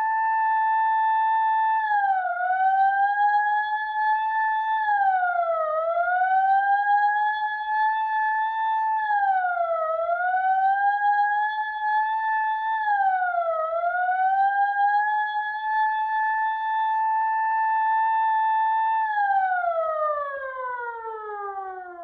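A siren holding a steady tone, dipping in pitch and climbing back four times, then falling steadily in pitch near the end.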